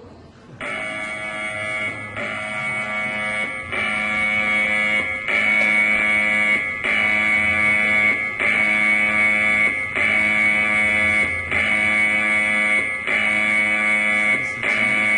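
Taiwan's emergency alert tone: a harsh, buzzing electronic alarm that starts suddenly about half a second in and repeats in pulses about every one and a half seconds, growing louder over the first few seconds.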